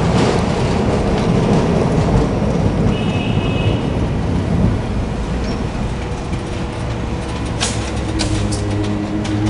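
A 1928 Milan-built Peter Witt streetcar running along the rails as it pulls in and stops, with a brief high squeal about three seconds in. Once it has stopped, a steady hum comes from the standing car, and a few sharp clicks sound near the end.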